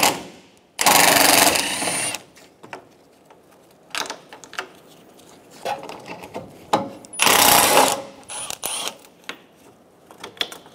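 Cordless power ratchet spinning out two 10 mm screws, one run of about a second early on and a shorter one past the middle, with small clicks and plastic knocks of handling between.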